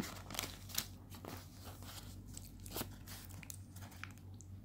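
Crinkling and sharp clicks from the paper and banana-leaf wrapping and the skewers of a satay package being handled, over a steady low hum.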